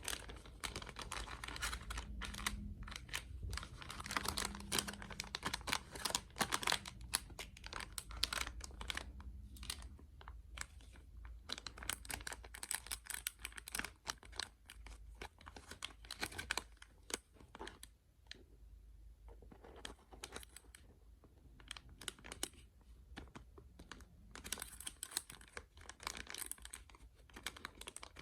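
Small mystery-bag packaging being handled and torn open: rapid crinkling, tearing and clicking, busier in the first several seconds and again near the end.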